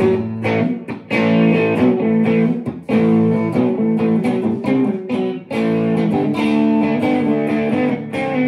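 Harley Benton SC-500 Les Paul–style electric guitar, stock, played through a Vox AC30 amp: chords strummed again and again and left to ring, with a few short breaks between phrases.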